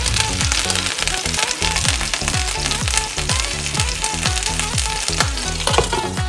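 Beef burger patties sizzling and crackling steadily as they fry in hot oil in frying pans, with background music with a beat.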